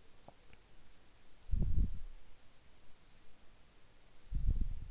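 Faint, quick clicking of a computer mouse in small clusters, heard while lines are being drawn on screen. Two short low thuds come about a second and a half in and again near the end.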